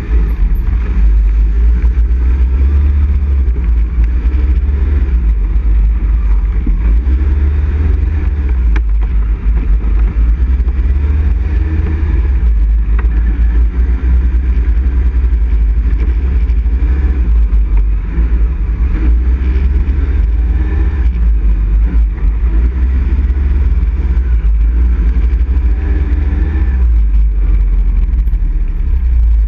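ATV engine running under way, its pitch wavering up and down with the throttle, over a heavy low rumble.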